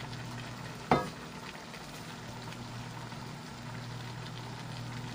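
Shrimp and string beans cooking in coconut milk in a wok, a steady sizzling simmer, with one sharp knock about a second in.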